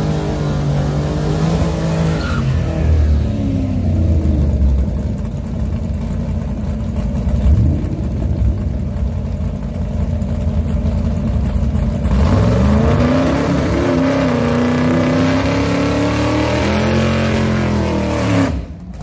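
Drag car engine revving hard through a burnout, with the hiss of spinning tyres. About two-thirds of the way in its pitch climbs and holds high for a few seconds, then drops away near the end.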